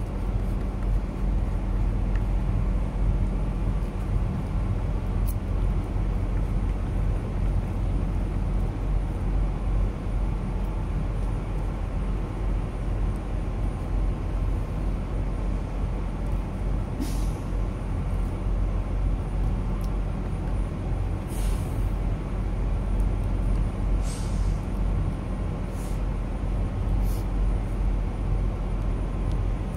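Steady low hum of an idling diesel truck engine, with about five short hisses of compressed air from truck air brakes in the second half.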